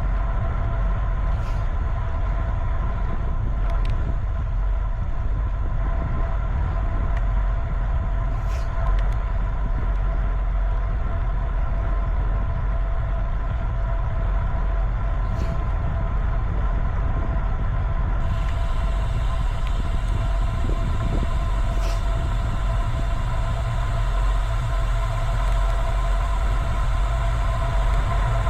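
Steady low rumble of wind and road noise on a bicycle-mounted camera while riding, with a steady hum of several tones over it and a few faint ticks.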